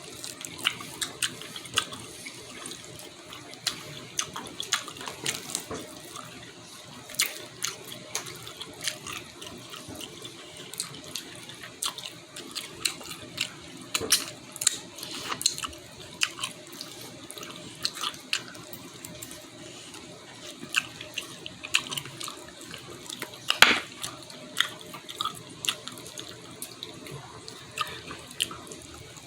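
Eating sounds: scattered small clicks and clinks of utensils and food over a steady background hiss, with one louder clack about three-quarters of the way through.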